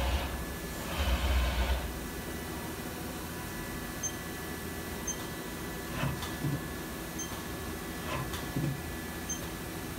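A 2001 Haas SL-20T CNC lathe humming steadily with a thin, steady whine. It surges louder twice in the first two seconds, and a few light clicks follow later.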